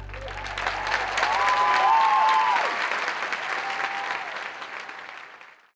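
Audience applauding, with cheering voices rising over the clapping about a second in; the applause fades out near the end.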